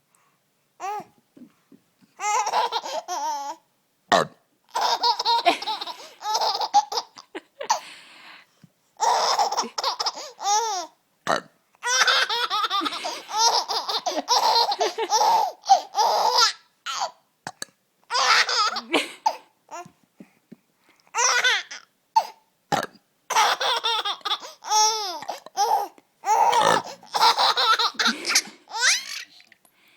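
A baby laughing in repeated high-pitched fits, each a second to several seconds long, with short pauses between them. A woman's burps sound now and then in the gaps, and each one sets off the laughter.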